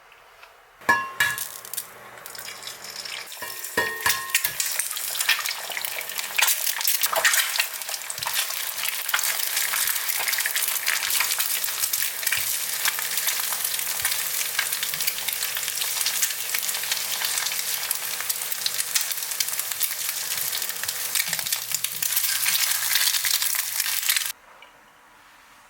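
Food frying in a pan, with a dense crackling sizzle and the scrapes of stirring. It starts about a second in with a ringing metal clink, and there is a low steady hum underneath. The sizzle cuts off suddenly near the end.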